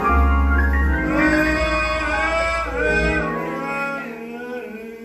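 Gospel accompaniment with sustained, string-like chords over a deep bass note. The bass drops out about three seconds in and the music thins and fades.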